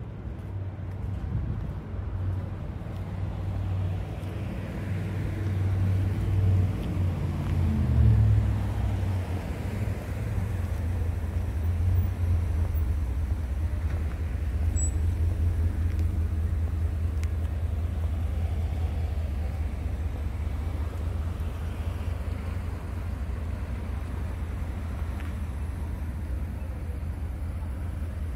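City street traffic: a car drives past, loudest about a third of the way in, over a steady low rumble.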